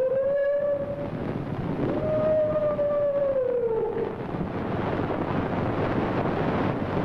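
A long wolf-like howl that trails off about a second in, then a second howl that rises and falls from about two to four seconds, over the steady hiss of an old film soundtrack.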